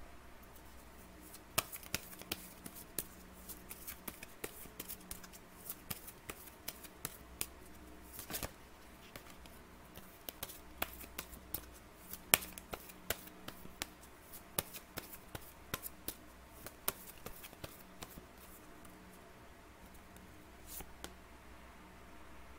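A deck of oracle cards being shuffled by hand off camera: a run of irregular crisp card clicks and flicks from a second or two in until near the end. Under it runs a steady low electrical hum from a faulty microphone.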